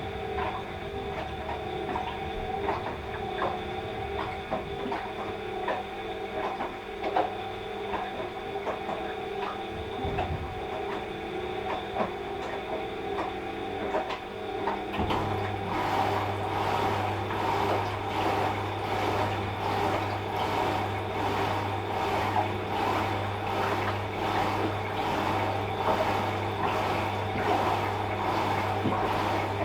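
Washing machine running mid-wash: a steady machine hum with scattered light clicks. About halfway through, the motor takes up a deeper steady hum and a rhythmic swish repeats about once a second as the drum turns.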